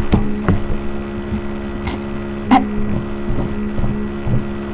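A steady low electrical or motor hum with several tones, broken by scattered short knocks and bumps, the loudest about two and a half seconds in.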